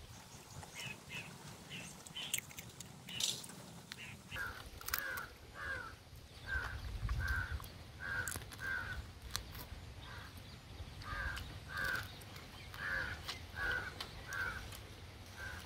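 Bird calls: runs of short repeated calls, about two a second, starting about four seconds in and continuing, with scattered faint clicks of crab being eaten.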